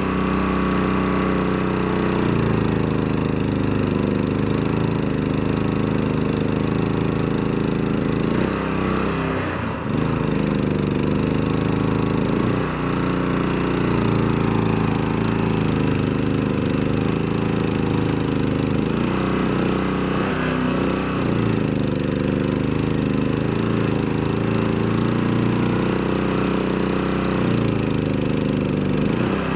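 Mud Buddy surface-drive mud motor running under load as it pushes a canoe through shallow, weedy water. Its revs sag and recover twice, about a third and two-thirds of the way through.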